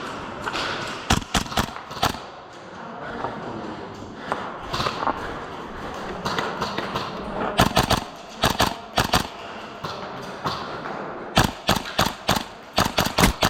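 Airsoft guns firing quick strings of sharp shots in three clusters: about a second in, around eight seconds in, and near the end.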